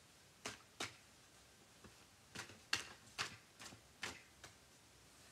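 Tarot cards being handled and drawn from the deck: about nine soft, irregular clicks and taps.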